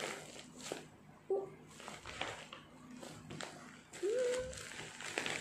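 Plastic parcel wrapping rustling and crinkling as it is handled, with scattered taps and clicks. A short rising tone is heard about four seconds in.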